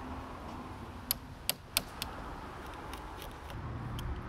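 A steel wood chisel paring thin chips from a hinge mortise in a solid oak door edge: three sharp clicks between one and two seconds in, then a few fainter ticks.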